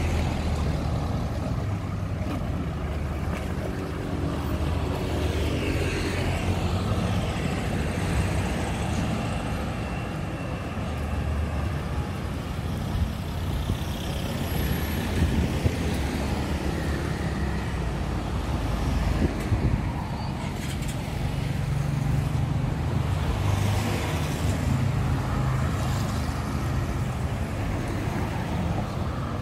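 Road traffic passing close by: car and motorbike engines running as vehicles go by, over a continuous traffic hum that swells and fades with each pass.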